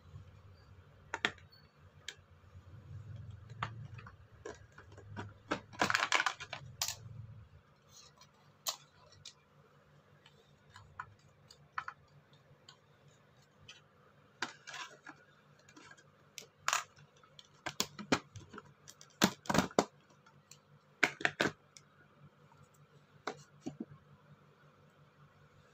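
Handling noises: scattered clicks, taps and light scraping as a plastic tray, cardboard packaging and a small cleaning brush are handled, with a low hum under the first seven seconds or so.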